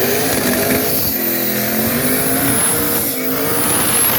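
A car engine revving hard, its pitch rising and falling with the revs, with a thin high whine above it.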